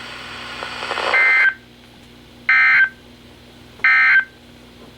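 NOAA Weather Radio receiver playing the EAS end-of-message data signal: three short, loud, warbling digital data bursts about a second and a half apart, marking the end of the Winter Storm Warning broadcast. Faint radio hiss comes before and between the bursts.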